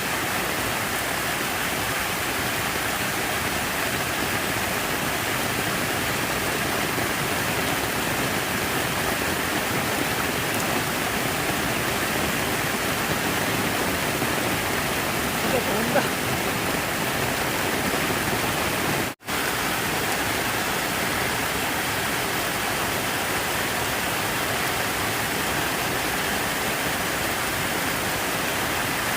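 Steady rush of running water, an even hiss that holds the same level throughout. The sound cuts out for an instant about two-thirds of the way through.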